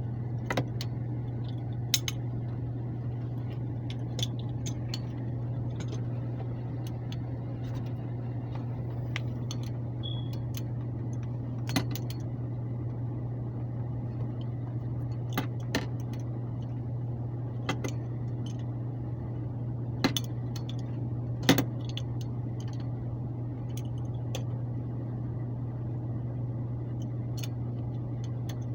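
Metal tools clinking and tapping now and then, a dozen or so sharp clicks spread irregularly, over a steady low hum.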